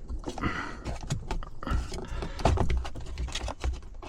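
Plastic interior trim and cable being handled and pressed into place: an irregular run of clicks, knocks and rustling, loudest a little past the middle.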